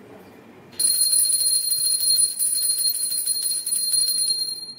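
Small brass hand bell (ghanti) rung rapidly and without a break during aarti, a high, clear ringing. It starts about a second in and stops near the end, its tone briefly fading out.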